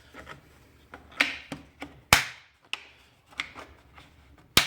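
Tools being handled in a tool box drawer: a string of sharp clacks and knocks, about six, the loudest about two seconds in and another near the end.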